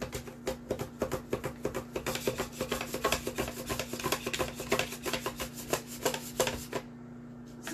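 Potato pushed in a hand guard back and forth over a mandoline slicer's blade, set to thin slices: a fast, even run of rasping slicing strokes that stops about seven seconds in.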